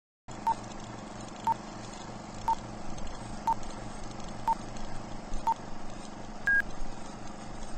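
Getac body-worn police camera beeping: six short, even beeps about a second apart, then one slightly longer, higher-pitched beep, over a faint electrical hum and hiss.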